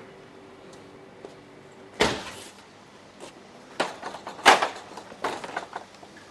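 A faint steady hum that stops just over a second in, then a run of knocks and clatters, four sharp ones with smaller clicks between, the loudest just past halfway, like doors or cupboards being handled.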